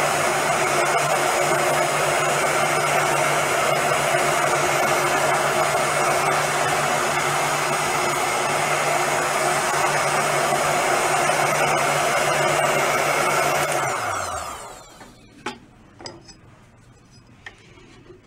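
Heat gun blowing steadily on a drum shell's veneer to soften the glue, then switched off about 14 seconds in, its motor winding down. After that, a few faint scrapes and ticks as a sharpened putty knife lifts the softened veneer.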